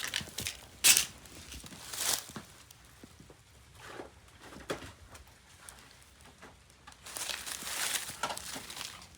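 Handling noises: a few sharp clicks and knocks, the loudest about a second in, and a stretch of rustling near the end.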